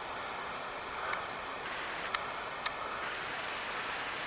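Steady rush of water from Caledonia Cascade, heard as an even hiss.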